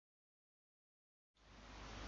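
Near silence: dead digital silence, then faint room tone coming in about a second and a half in.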